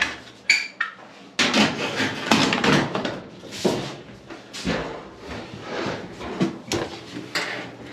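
A few sharp clicks, then a long run of scraping, rubbing and knocking: the metal cabinet and panels of a clothes dryer being handled and shifted as it is put back together.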